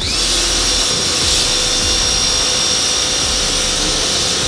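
Pressure washer spraying a screen-printing screen and its frame to rinse off ink degrader. The pump's whine rises in pitch at the start, then holds steady over the hiss of the water jet.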